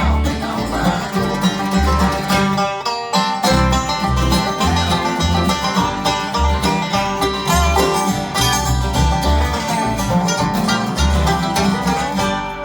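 Bluegrass band playing an instrumental passage: banjo, mandolin, guitar and dobro over a steady bass line. The band drops out briefly about three seconds in, then plays on until the music falls away near the end.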